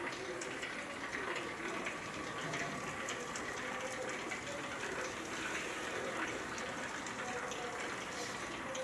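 ULMA Galaxy stretch-film tray wrapping machine running: a steady mechanical hiss with light, irregular ticks, with faint voices in the background.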